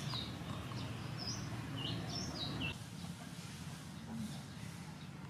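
Birds chirping: short high notes that step up and down in pitch, repeated several times over a steady low background rumble. The chirping stops about three seconds in, leaving only the quieter rumble.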